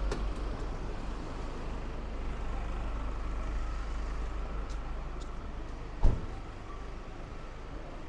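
City street traffic with a steady low rumble of passing vehicles. One sharp thump about six seconds in.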